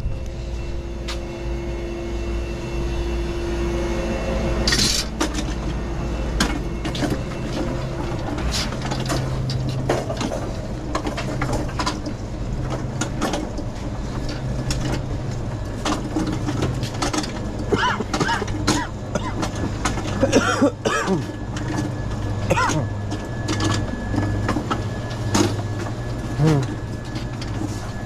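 Magliner hand truck loaded with bottled drinks being pushed across a store floor: a steady low rumble from the rolling wheels, with scattered clicks and rattles that come more often in the second half.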